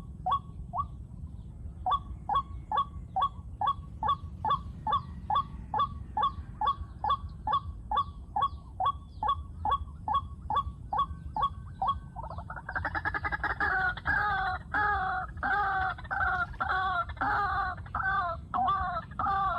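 White-breasted waterhen calling: a fast series of short, repeated notes, about two and a half a second. From about twelve seconds in it switches to longer, harsher croaking calls at about two a second.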